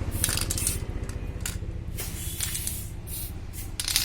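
Aerosol spray paint can giving several short hissing bursts, touching up a scratch. A steady low machine hum runs underneath.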